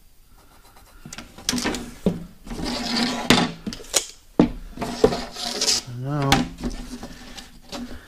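A tape measure and marker being handled on a plastic boat deck: a string of clicks, scrapes and knocks as the tape is moved and set down. A brief murmur of voice comes in near the end.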